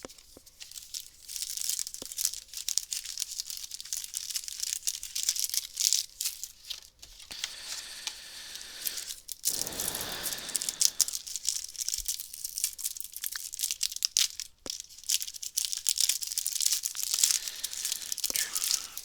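Crinkling and tearing of a trading-card booster pack wrapper being torn open, with scratchy rustles and small clicks throughout and a fuller, louder rustle about ten seconds in.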